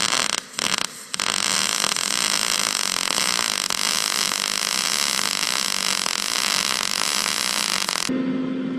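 Wire-feed welding arc sizzling on steel sheet. It stops and restarts twice in the first second, then holds one long bead for about seven seconds: a long stitch weld of the kind that warped the door. Near the end it cuts to a steady low hum.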